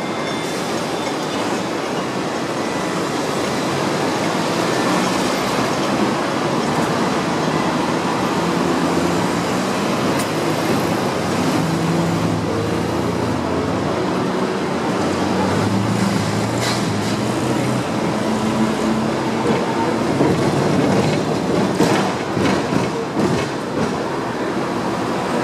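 Hong Kong double-decker electric tram running along its street track: a steady rumble of steel wheels on rails under a low hum that shifts in pitch, with a few sharp clacks in the second half.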